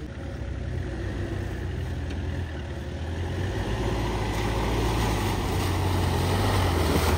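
Mahindra Thar CRDe's diesel engine running, a steady low drone that grows gradually louder as the vehicle approaches.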